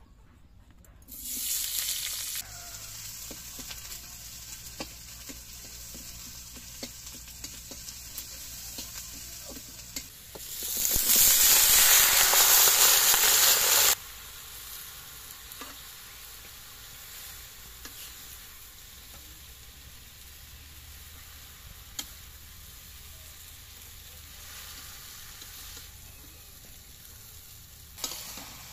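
Puishak (Malabar spinach) frying in hot oil in an iron karahi, with a metal spatula stirring. A short sizzle comes about a second in, then loud sizzling for about three seconds near the middle as the greens hit the oil, then a steadier, quieter sizzle with light spatula clicks.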